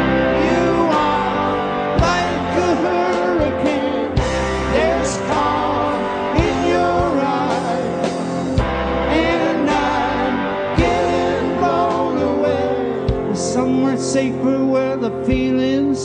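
Rock band playing live: a slow, heavy instrumental stretch with an electric guitar lead of wavering, bent notes over sustained chords, bass, and drum hits about every two seconds.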